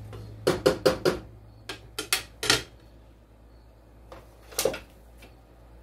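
Wooden spatula knocking against a stockpot while pasta is stirred: a quick run of about eight sharp clacks in the first two and a half seconds, then one more knock past the middle.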